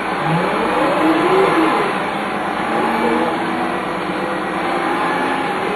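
Dennis Lance bus's Cummins 6CT six-cylinder diesel and ZF 4HP500 automatic gearbox under way, with the gearbox whine rising and falling in pitch several times over the engine's running.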